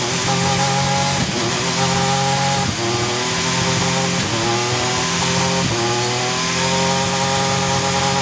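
Racing V6 engine of a 1996 Alfa Romeo 155 V6 TI DTM car running at high revs under load, with a short break in the note about every one to one and a half seconds. The pitch climbs a little within each stretch, like quick sequential-gearbox shifts while accelerating.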